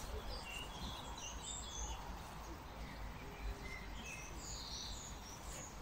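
Small birds chirping in short, scattered calls over a low, steady background rumble.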